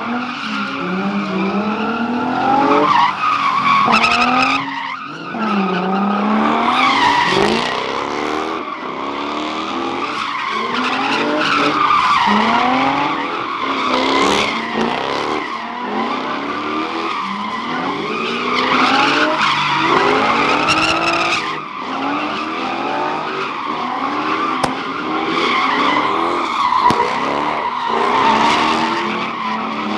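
A car spinning donuts: its engine revs up and falls back over and over while the tires squeal without a break.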